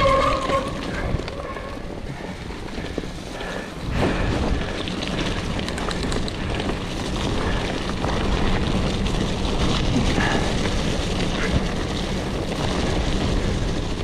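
Cube Stereo One 22 Race mountain bike ridden over a wet, muddy trail: a steady rush of tyre and wind noise on the action camera's microphone, with the bike's frame and drivetrain clattering over the bumps.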